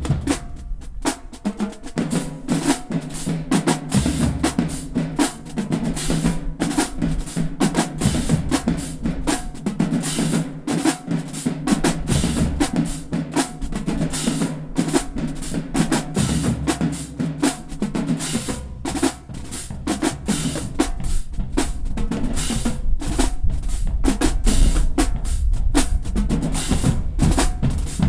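Marching band drumline playing a cadence: rapid snare drum strokes and rolls over pounding bass drums. The deep bass drum hits grow heavier in the last several seconds.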